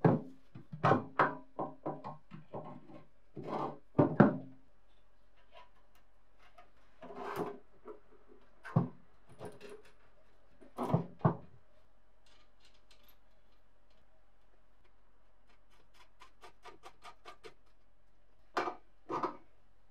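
Metal parts of a paper guillotine cutter knocking and clattering as they are handled and fitted together: a dense run of sharp knocks in the first few seconds, then scattered knocks. Near the end come quick light ticks as a nut is spun onto the pivot bolt by hand, followed by two louder knocks.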